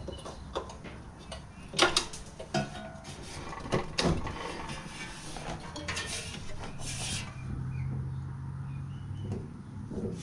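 Scattered knocks and clanks of tools and metal parts being handled while working on a mini bike's engine mount. The loudest knocks come about two and four seconds in, with a short scrape about seven seconds in.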